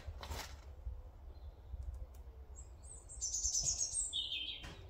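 A songbird sings a quick twittering phrase of rapid high notes about three seconds in, dropping to a lower trill near the end. Before that, a couple of faint clicks sound over a low steady rumble.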